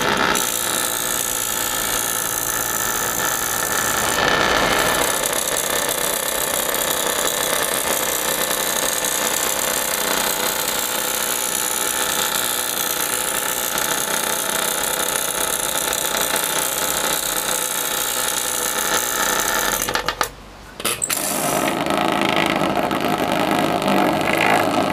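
Small vibrobot buzzing and rattling: its vibration motor shakes a metal body made of old watch parts on bent-wire legs, which chatter against the surface. The buzz is steady, cuts out briefly near the end, then resumes.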